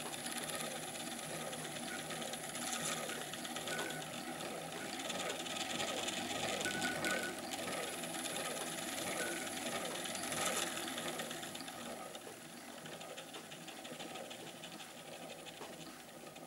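1902 Singer 28K hand-crank sewing machine winding a bobbin: the hand wheel, winder gearing and cam thread guide turn steadily with a faint regular pulse, growing quieter over the last few seconds. The stop motion button is disengaged, so only the winding mechanism turns, not the needle bar.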